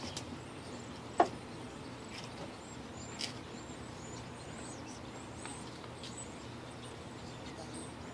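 Outdoor ballpark background noise with faint, scattered high chirps and one sharp smack about a second in.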